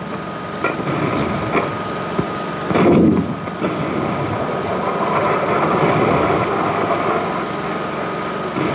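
A mortar shell bursting: one loud boom about three seconds in. Under it runs the steady hiss and thin tone of an old film soundtrack.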